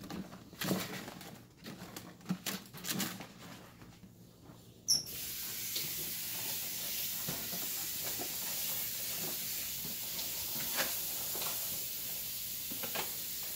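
Stiff banana leaves crackling and rustling as they are pressed into a steamer pot. About five seconds in, after a sharp click, a steady hiss of tap water running into a kitchen sink over more banana leaves takes over.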